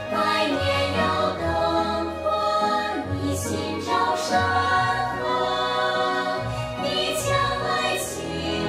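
A male singer holding long sung notes over orchestral backing with a choir.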